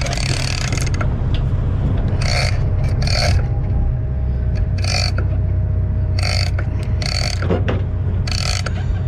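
Shimano Tiagra 130 big-game reel whirring under load from a hooked tuna. A longer whir stops about a second in, and then come six short spurts of the same sound. A steady low rumble runs underneath.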